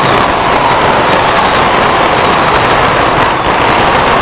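A dense, unbroken barrage of firecrackers crackling and banging.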